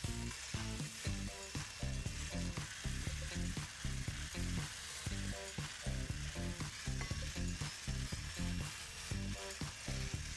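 Ingredients being stirred or beaten in a mixing bowl, a steady uneven swishing and scraping, over quiet background music with a low bass line.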